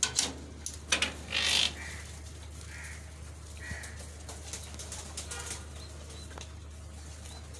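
Aviary doves calling softly a few times, after a short run of loud rustling in the first two seconds.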